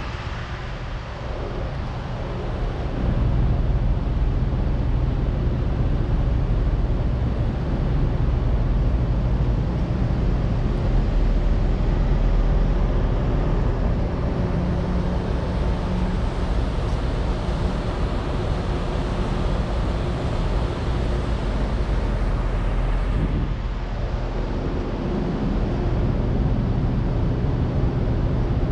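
A car running: a steady low engine rumble and hum, with even road or cabin noise and no sudden sounds.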